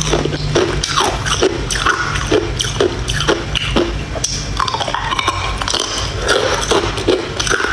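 Ice being bitten off and crunched between the teeth: loud, crisp, irregular crunches, several a second.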